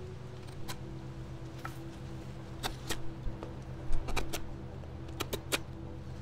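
Gerber StrongArm fixed-blade knife carving a dry stick: irregular sharp clicks and scrapes as the blade takes shavings off the wood, over a steady low hum.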